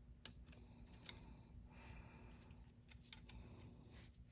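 Near silence, broken by a few faint, scattered clicks as the small metal parts of a Lionel 397 coal loader's conveyor are handled and fitted together.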